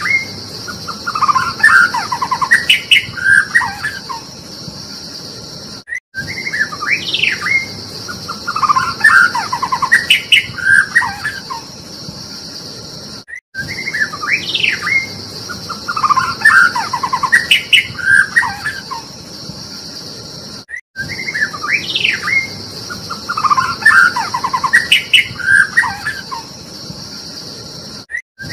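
White-rumped shama song: rising and falling whistles with fast trills. The same phrase comes back about every seven and a half seconds with a brief cut between repeats, a looped recording. A steady high-pitched hiss runs behind it.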